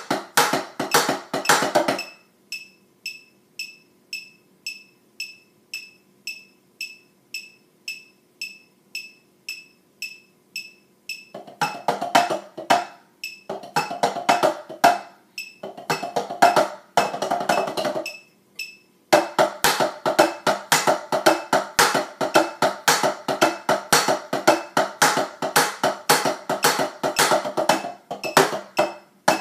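Drumsticks on a rubber-topped tenor (quads) practice pad set playing a drumline cadence. Fast stick patterns stop about two seconds in, leaving only an even tick about twice a second for some nine seconds. Then come short phrases with gaps, and continuous playing over the last third.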